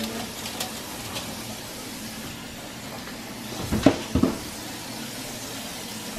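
A foil-lined baking tray being slid into an oven and the oven door shut: a few light clicks, then two sharp knocks close together about four seconds in, over a steady low hiss.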